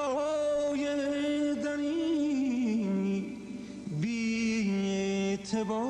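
Persian classical music: a single melodic line in long held notes that waver and slide downward about three seconds in, then pick up on a new held note after a brief dip.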